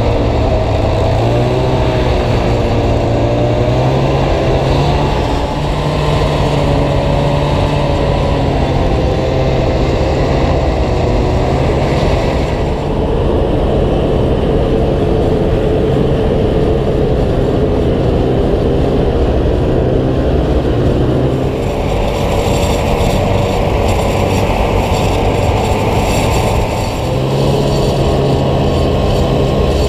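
Snowmobile engine running as the sled travels over the snow, its pitch rising and falling.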